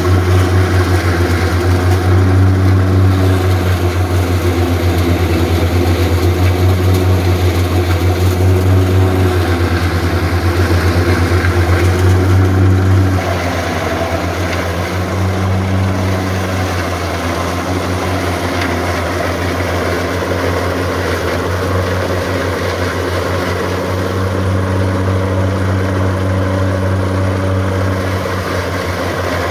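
Valmet 128 tractor's diesel engine running steadily under load, driving a stationary forage chopper as workers feed corn straw into it. The sound drops slightly in level about thirteen seconds in, then runs on steadily.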